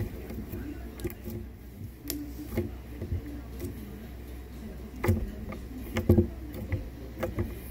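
Slime being squeezed and kneaded by hand, making irregular soft clicks and sticky pops, the loudest cluster about five to six seconds in.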